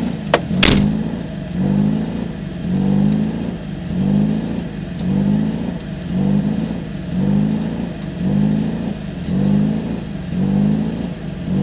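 Alfa Romeo 33 4x4's 1.7-litre 16-valve flat-four engine idling fast in a stationary rally car, its revs swelling and dropping about once a second as the throttle is blipped while waiting for the start. A sharp click about half a second in is the loudest single sound.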